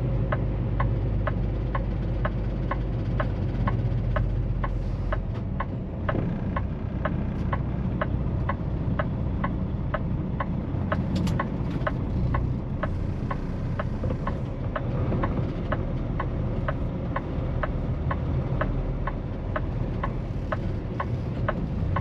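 Tractor-trailer's diesel engine running, heard from inside the cab, with the turn signal ticking steadily about twice a second.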